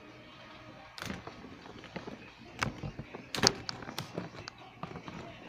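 Handling noise close to the microphone: scattered knocks, taps and rustles as a plastic action figure and the recording device are moved about, starting about a second in, with the loudest knock about three and a half seconds in.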